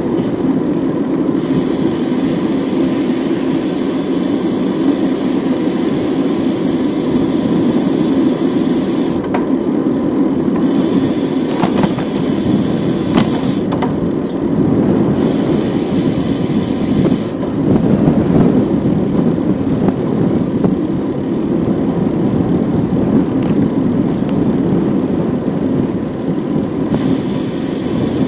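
Steady rumble of wind and road noise from a bicycle being ridden, with a few sharp clicks about halfway through.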